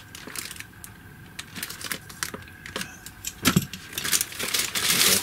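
Plastic packaging crinkling and crackling as parts are unwrapped, with small clicks and knocks; the crackling gets denser and louder about three and a half seconds in.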